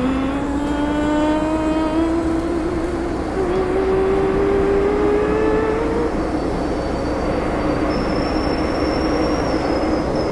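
MTR M-Train (Metro-Cammell electric multiple unit) accelerating away from the station: the traction motors whine, rising steadily in pitch, drop back once about three seconds in and climb again. It then settles into steady running rumble with a faint high whistle in the second half.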